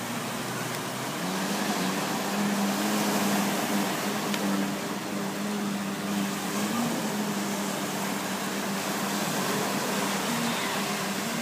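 A motorboat engine droning steadily, a pitched hum that comes in about a second in and holds, over the wash of small waves breaking on the beach.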